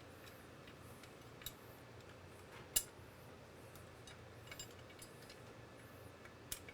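A few sharp, scattered light metal clicks and clinks from hand work on a bicycle bottom bracket, as a mid-drive motor's retaining ring and tools are handled. The loudest clink comes just under three seconds in.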